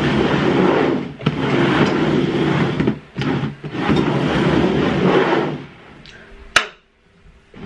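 Upturned plastic bowls scraping and sliding across a tabletop as they are shuffled around, in several long strokes, then a single sharp knock near the end.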